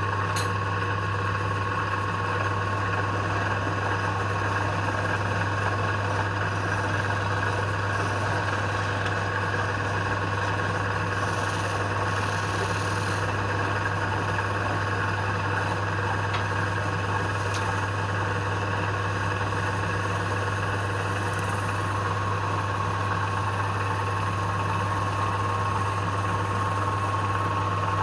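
Electric wood lathe motor running with a steady hum.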